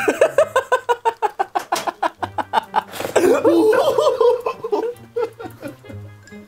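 Men laughing hard: a fast run of 'ha-ha' bursts for about three seconds, then a longer, wavering laugh that dies down near the end.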